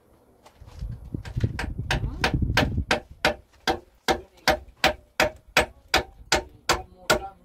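Hammer driving a nail into a wooden plank: quick, softer taps at first, then from about three seconds in, steady blows at about two and a half a second, each with a brief metallic ring.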